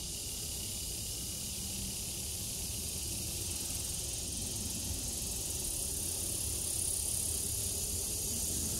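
Summer insect chorus: a steady, high-pitched buzzing hiss that swells slightly, with a low rumble underneath.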